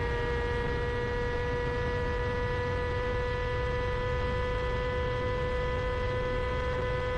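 Sportbike engine holding a steady high-revving note at over 300 km/h, under a heavy rush of wind noise.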